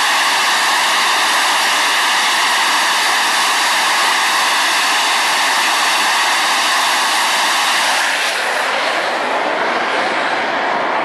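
Target drone's engine running steadily at high power on the launch rail, a loud, even engine tone over hiss. About eight seconds in the drone leaves the pneumatic launcher: the steady tone breaks up and the sound grows a little quieter as it flies off.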